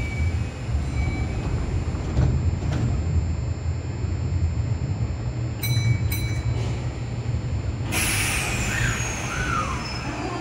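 Kintetsu 5820 series electric train standing at the platform over a steady low rumble. Two short beeps sound as its doors close, about six seconds in. About two seconds later comes a sudden hiss of the air brakes releasing, and near the end the IGBT inverter's tone starts to climb as the train pulls away.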